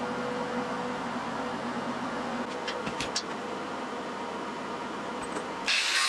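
Steady background hum, with a few light metal clicks around three seconds in as a ball bearing is handled onto a steel shaft. Near the end an angle grinder suddenly starts grinding on steel, loud and high-pitched.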